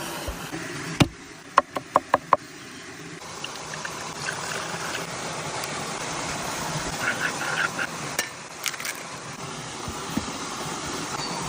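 Kitchen cookware: a metal utensil clinks against a pot or pan four times in quick succession, each strike ringing, followed by a steady hiss with a few scattered clinks.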